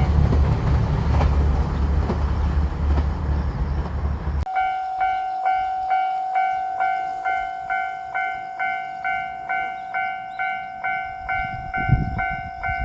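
The 2700 series diesel limited express train rumbles heavily as it passes the crossing. After about four and a half seconds the sound cuts abruptly to the Japanese level-crossing warning bell, which rings steadily at about two strokes a second with its "kan-kan" tone.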